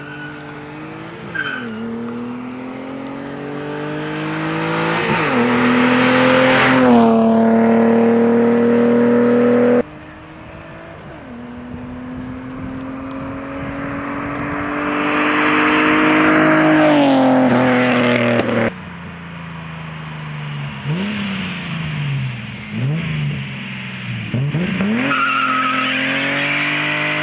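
Datsun 280ZX's straight-six engine pulling hard through the gears: its pitch climbs steadily and drops back at each shift. Near the end come several short rev blips.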